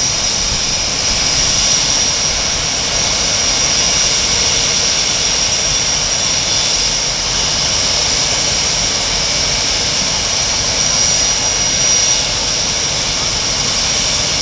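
Blue Angels F/A-18 Hornet jet engines running at idle on the ramp: a steady high-pitched whine over a constant rushing noise.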